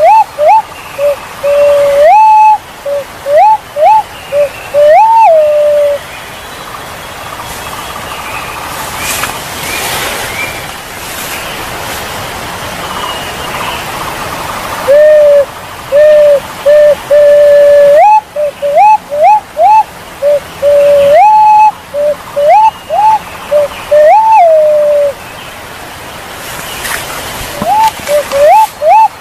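Punai walik jawa, a green pigeon, calling. It gives loud whistled phrases of low held notes broken by quick upward swoops to a higher note, in three bouts with a pause of about nine seconds after the first. A steady rushing noise like a stream fills the pauses.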